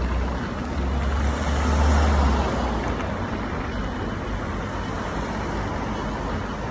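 Street traffic with a car passing close by: its engine and tyre noise swell about a second in, peak, and fade after about two and a half seconds, over a steady hum of traffic.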